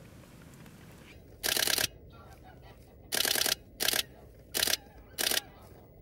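Nikon D500 DSLR shutter firing in five short bursts of rapid frames, each a fraction of a second long, the longest about half a second.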